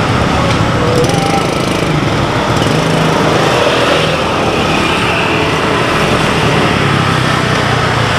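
A small engine running steadily, with a rapid low chugging and a constant hum.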